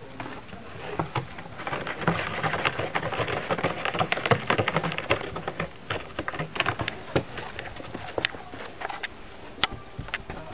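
Quick run of small taps and scuffs from a cat's toy being played with close by on a carpet mat, thick for a few seconds and then thinning out to scattered clicks.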